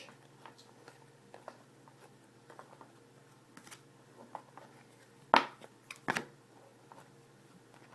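Hockey trading cards being handled and flipped through from a freshly opened pack: soft rustles and light clicks of card stock, with two louder sharp snaps about five and a half and six seconds in.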